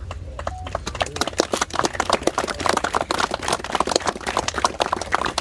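A crowd applauding, the clapping thickening within the first second.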